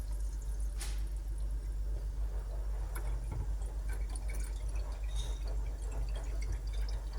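Water running steadily from a filtered drinking-water tap, with a single sharp click about a second in.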